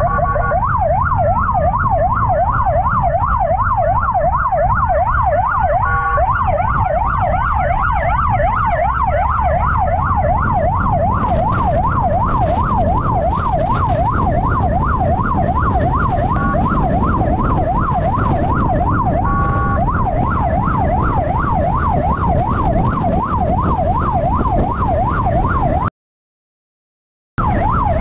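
Police motorcycle's electronic siren in a fast yelp, its pitch sweeping up and down several times a second, broken a few times by short steady horn blasts, over the low rumble of the ride. The sound cuts out completely for about a second and a half near the end.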